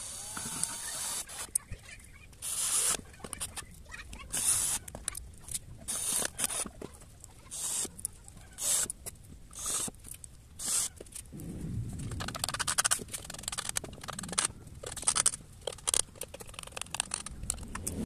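Cordless drill driving screws into a plywood speaker box in a series of short bursts, each under a second, to fasten a 4-inch woofer.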